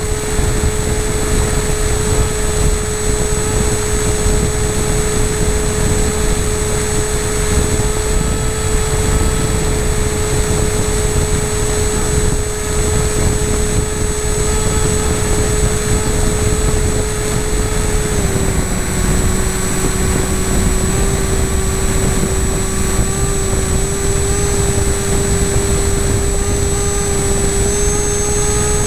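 Model aircraft motor and propeller running steadily in flight, a constant whine over a rush of wind noise; the pitch steps slightly lower about 18 seconds in, as the throttle eases.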